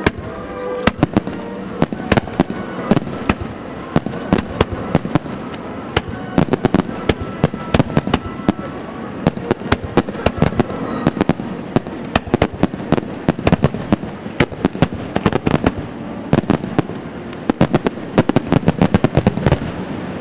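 Aerial fireworks display: shells bursting one after another in a rapid run of sharp bangs and crackles, packed densely together in the last couple of seconds.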